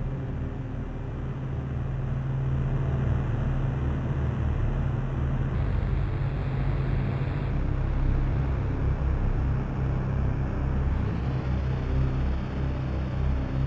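Synthesizer drone-noise run through effects pedals: a steady, rumbling wash of noise over a low hum, with a faint high tone that slides up about two-thirds of the way through and then holds.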